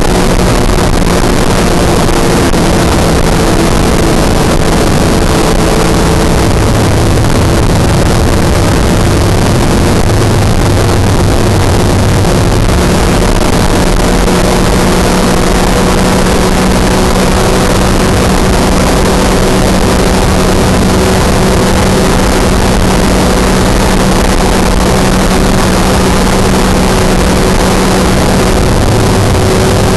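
Microlight trike's engine and propeller droning steadily in flight, with loud wind rush over the microphone. The engine's note shifts slightly now and then.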